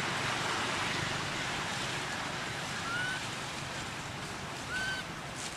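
A baby macaque gives two short rising squeaks about two seconds apart, the second one louder, over a steady outdoor hiss.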